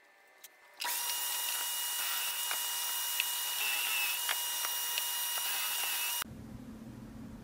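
Power drill boring a pocket hole through a pocket-hole jig into plywood. It runs at a steady speed with a steady whine, starting about a second in and stopping abruptly about six seconds in.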